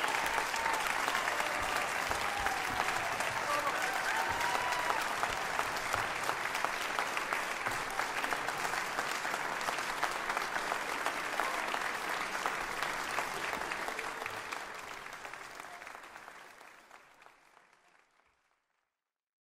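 Concert audience applauding: dense, steady clapping, with a few voices calling out in the first few seconds. The applause fades out to silence over the last few seconds.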